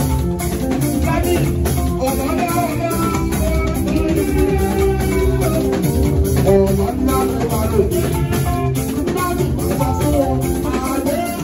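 Live band music: electric guitar playing melodic lines over a drum kit beat.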